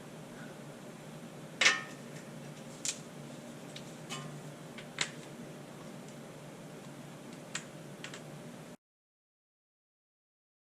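A few scattered light clicks and knocks over faint hiss, the loudest about two seconds in, then the sound cuts out to dead silence near the end.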